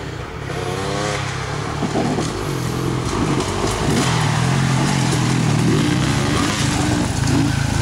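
Dirt bike engines revving, their pitch rising and falling, growing louder over the first few seconds as the bikes come down the trail, then staying loud.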